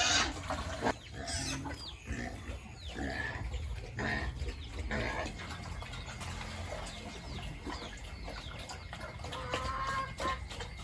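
Pigs grunting in a pig pen, with many short, high chirps from birds or fowl mixed in.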